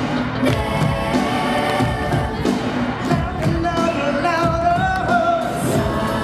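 Live pop song over a PA: a male lead voice holding long sung notes over backing music with a steady drum beat.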